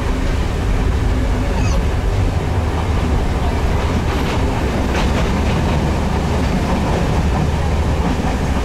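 Passenger train running at speed, heard from inside the carriage: a steady rumble of wheels on the rails with a few faint clacks.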